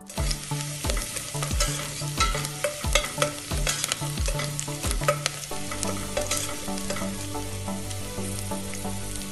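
Chopped ginger, garlic, green chillies and curry leaves sizzling in hot oil with mustard seeds in a stainless steel pot, stirred with a spoon that clicks and scrapes against the pot. Background music with a soft beat runs underneath, its beat dropping out about halfway.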